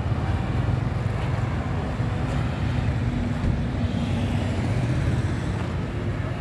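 Steady low rumble of outdoor background noise, with a faint steady hum for a few seconds in the middle.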